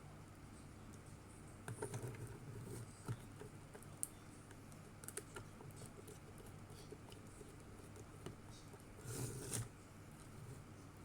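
Faint handling of a small plastic robot's parts while a screw is fitted: scattered light clicks and taps, with two short bursts of scraping about two seconds in and near the end.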